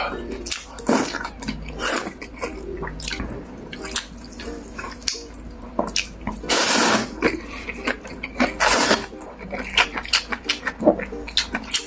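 Slurping cold noodles and chilled broth, with wet chewing. A few longer slurps stand out, the longest about seven seconds in, between runs of quick chewing clicks.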